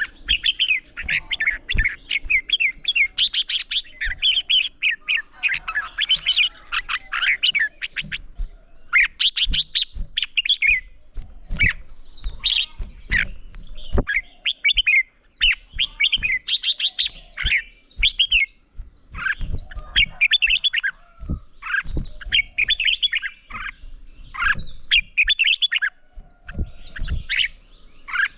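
Red-whiskered bulbuls singing: quick, chattering whistled phrases one after another with only brief pauses, the competitive song that keepers use to provoke other bulbuls into singing. Short low knocks are scattered among the phrases.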